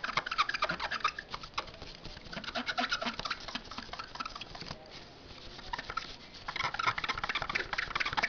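Rubber eraser scrubbing over the gold edge contacts of a DDR2 RAM module to clean them: a dry, rapid scratching in bursts of strokes. The strokes are louder about a second in, around three seconds in, and again near the end.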